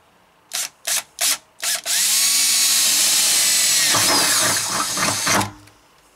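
Cordless drill with a twist bit drilling a pilot hole up through the van's sheet-metal roof: four short trigger bursts, then about three and a half seconds of steady drilling. It stops suddenly about five and a half seconds in, once the bit is through the metal.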